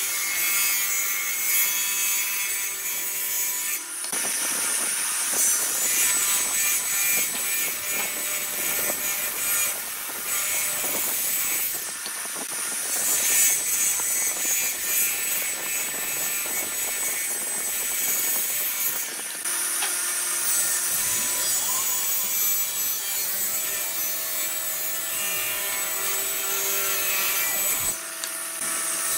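Table saw ripping blocks of wood along the fence: a steady, high-pitched cutting noise from the blade. It shifts abruptly several times as one cut gives way to the next.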